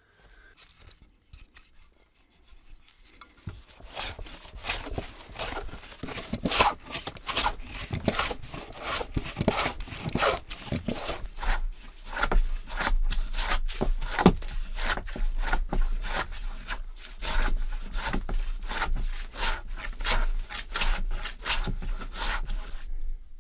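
A wooden hand plane shaving a rough board, taking quick, repeated strokes that begin a few seconds in.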